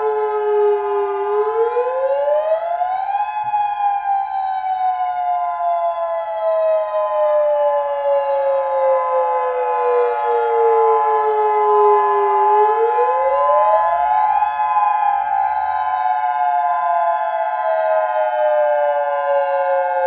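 Civil defense siren sounding a tsunami warning. Its wail rises quickly over about two seconds, then sinks slowly over about nine seconds, and the cycle comes twice. A set of steady higher tones sounds with it throughout.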